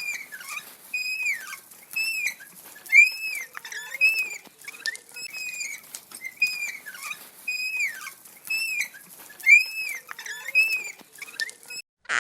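Rubber squeaky toy squeezed over and over, a little more than one squeak a second, each squeak rising and falling in pitch, with faint clicks between them. The squeaking stops just before the end.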